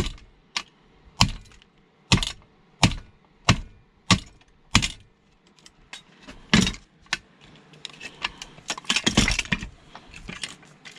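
Hand tool striking metal in a series of sharp blows, roughly one every half second to second, forcing a stuck part out of an old metal assembly. After a short pause, a couple of seconds of metal rattling and clinking.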